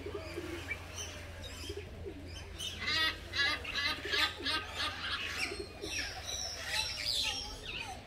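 Captive birds calling: low wavering calls in the first two seconds, then a louder run of repeated chirps and whistles from about three seconds in.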